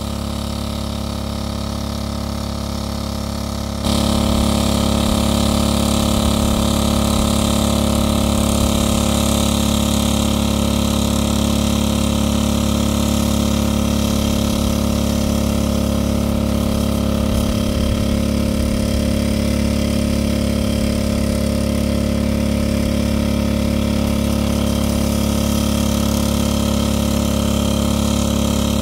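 Small engine-driven water pump running steadily, draining the pond. It runs at one even speed and gets louder about four seconds in.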